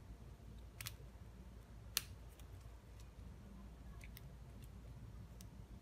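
Plastic pieces of a stick-and-connector building toy clicking as they are snapped and pressed together by hand: a few scattered light clicks, the sharpest about two seconds in.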